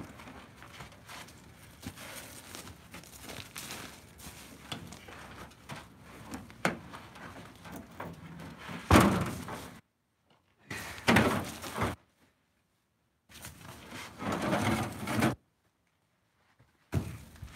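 Ash firewood rounds being pulled across a pickup bed and set onto a stack: wooden thunks and scraping, the loudest about nine seconds in. In the second half the sound cuts out to dead silence several times.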